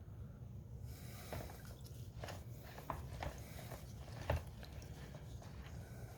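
Small concrete planters being handled while excess sealer is shaken out, making a scatter of light clicks and taps with one sharper knock about four seconds in, over a low steady hum.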